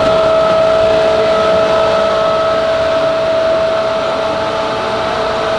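Overhead shop crane's electric drive whining steadily as it carries a 16,000-pound machine block on chains and slings.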